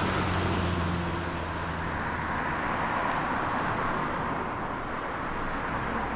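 Street traffic noise: a vehicle passes close by in the first couple of seconds, then steady road noise from traffic.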